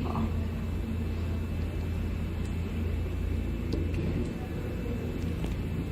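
Steady low background rumble, with a few faint clicks and a brief spoken word near the end.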